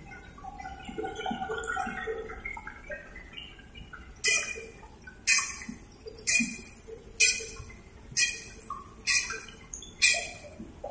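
Tofu deep-frying in hot oil in a large aluminium wok, sizzling quietly at first. From about four seconds in, loud sizzling bursts come roughly once a second, each starting suddenly and fading over about half a second.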